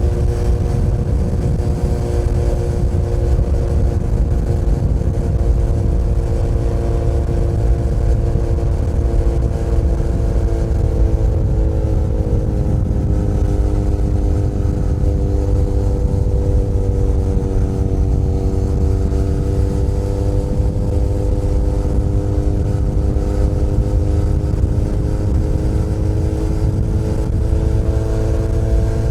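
Benelli Leoncino 500 Trail's parallel-twin engine running steadily at cruising speed, under a heavy low rumble. The engine note drops a little about twelve seconds in and climbs back near the end.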